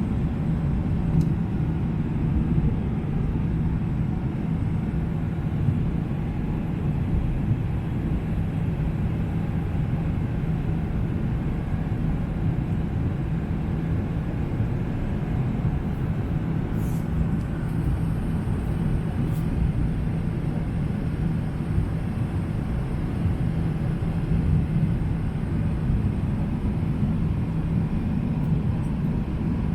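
Steady low rumble of a Boeing 777-300ER's engines and rushing air, heard from inside the passenger cabin, holding even with no change in pitch.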